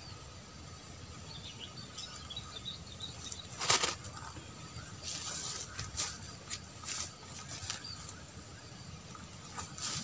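Handling sounds of a fishing rod being recast: one loud swishing burst about four seconds in, then a scatter of short rustles and clicks, with a few faint chirps before it.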